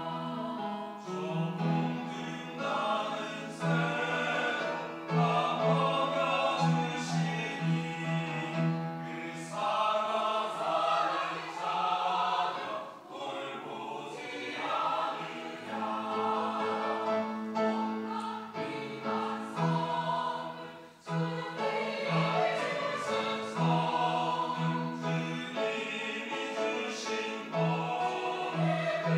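Church choir singing a sacred anthem in parts, with one short break in the sound about two-thirds of the way through.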